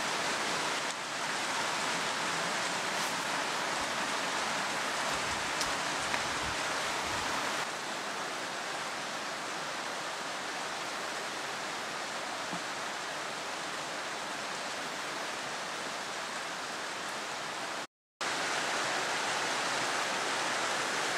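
A steady, even hiss with no distinct events. It drops slightly in level about eight seconds in and cuts out briefly near the end.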